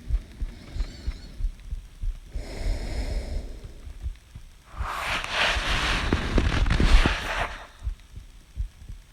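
A person's heartbeat heard close against the chest: dull low thumps about one and a half times a second, the rate rising as she breathes in. Two breaths cross it: a soft one about two seconds in, then a louder, hissing breath from about five seconds in that lasts over two seconds and is the loudest sound.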